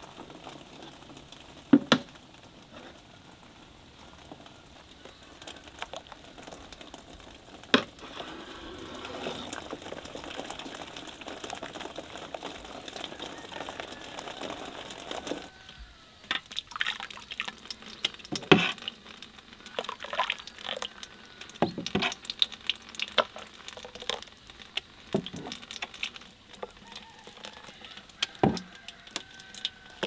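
Rose hip purée being ladled from a pot into a steel mesh sieve, with liquid pouring and two sharp clinks of the ladle on metal. Then thick rose hip purée bubbling, with irregular plops and pops as bubbles burst.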